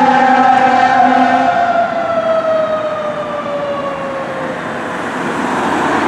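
Fire engine siren winding down: one long tone sliding slowly lower and fading out over about four and a half seconds. Road noise of the passing engine rises near the end.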